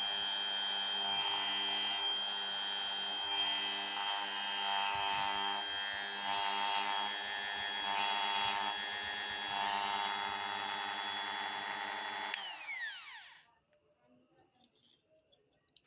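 Mollar MG-007 mini grinder (rotary tool) running steadily at speed with a high whine and a faint pulsing about once a second. This is the strange noise the owner counts as the tool's first flaw. About 12 seconds in it clicks off and its pitch falls quickly as the motor winds down.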